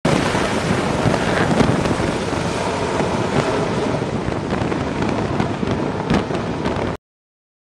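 F/A-18F Super Hornet's twin jet engines running loud at full power as it is catapult-launched off the carrier deck and climbs away, with a few sharp cracks in the noise. The sound cuts off suddenly near the end.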